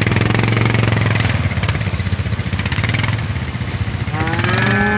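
Four-wheeler engine running steadily. A cow lets out a long moo about four seconds in.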